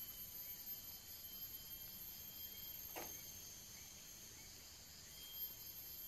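Faint, steady high-pitched chorus of forest insects, with small chirps repeating underneath and a brief falling tone about halfway through.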